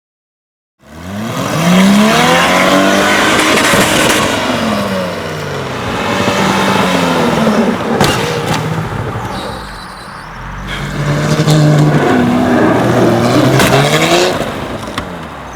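Jaguar XJ sedan's engine being revved hard, its pitch climbing and falling over and over in two rounds with a lull between them, starting about a second in. A couple of sharp knocks cut through near the middle and near the end.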